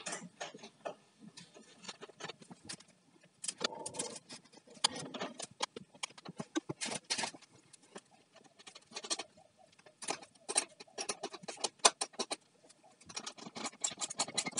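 Irregular light clicks and clinks of metal parts being handled: cable lugs, nuts and a spanner on lead-acid battery terminal posts while the cables are fitted.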